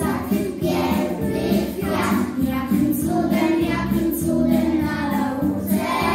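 A group of young children singing a song together over instrumental accompaniment with a steady beat.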